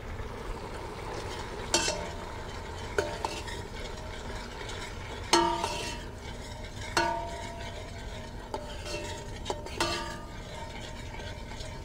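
A metal ladle stirring blended tomato purée in a stainless steel pot, clinking against the pot several times with short ringing tones, over a steady low sizzle of the tomato frying in butter and ginger-garlic paste.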